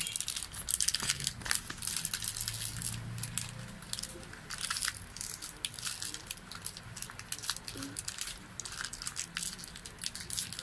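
Plastic toy packaging crinkling and crackling as it is handled and rummaged through: a dense run of small, irregular crackles.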